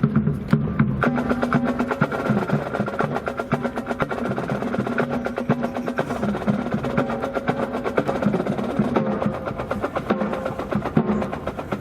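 Band music with busy percussion, a rapid run of snare-drum and wood-block-like strikes over sustained band tones.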